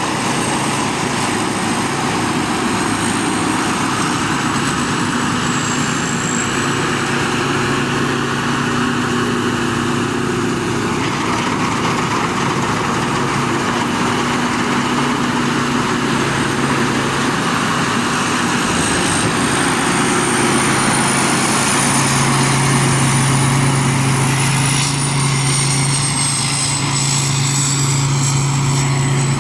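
A Chao Phayu rice combine harvester running, with a steady engine hum and a high, thin whine from its machinery that wavers in pitch. The engine note gets a little louder about two-thirds of the way through.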